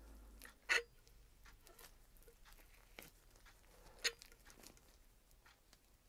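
Tools and small metal fork parts handled by gloved hands on a workbench: two sharp clicks, one under a second in and another about four seconds in, a fainter tap between them, and light rustling throughout.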